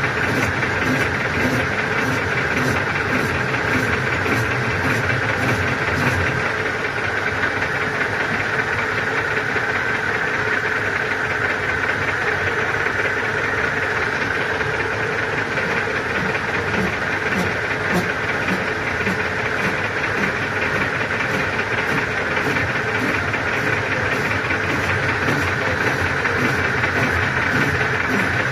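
Metal lathe running with a steady whirring hum while a tool is fed into the end of a shock absorber tube spinning in its chuck.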